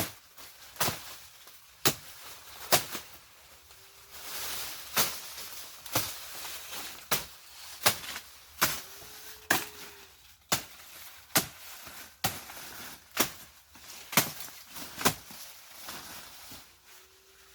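Repeated sharp chopping strikes, about one a second and fairly even, typical of wood being chopped. A faint, brief low tone rises and falls three times in the gaps.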